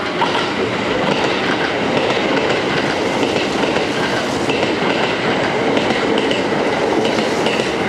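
Six-car Kintetsu electric multiple-unit train (1400 series and 2430 series) running through a station without stopping, passing close by at speed: a loud, steady rumble of wheels on the rails.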